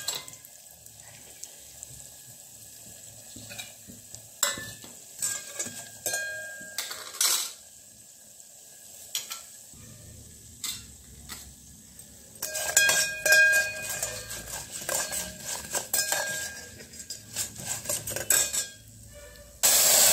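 Steel spoon scraping and clinking against a bronze pot, which rings, while dals and dried red chillies fry quietly in oil. Near the end a sudden loud hiss as water is poured into the hot oil.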